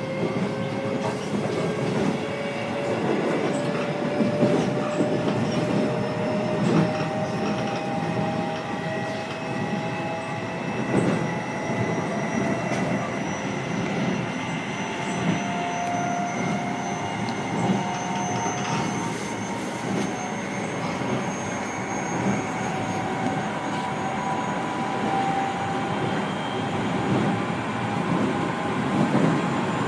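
Running sound inside a moving Keio 7000 series electric train car. The traction motor and gear whine climbs slowly in pitch as the train gathers speed, over a steady rumble with occasional clicks of the wheels on the track.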